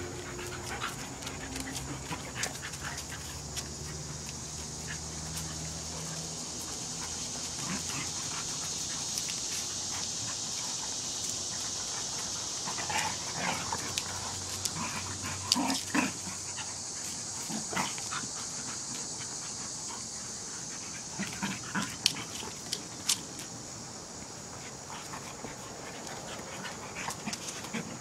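A Golden Retriever and a German Shepherd mix puppy play fighting: panting, with paws and claws scuffling and clicking on stone paving, and a few short, sharp dog sounds now and then.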